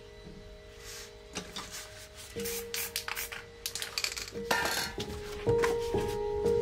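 Several short rustles and scrapes of paper stencils being handled and lifted off poster paper, growing louder toward the end, over background music with sustained tones.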